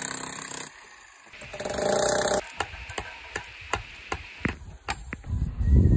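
A hand-held angle grinder cutting concrete block stops abruptly, then a hammer strikes timber column formwork in a string of sharp knocks, about two to three a second.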